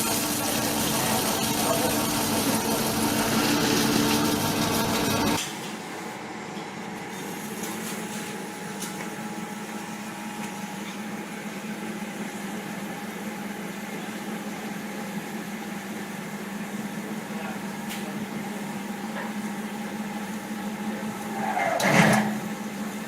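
Strip-cutting machine running with a steady mechanical hum that drops abruptly to a quieter hum about five seconds in. Near the end there is one brief, louder sweep in pitch.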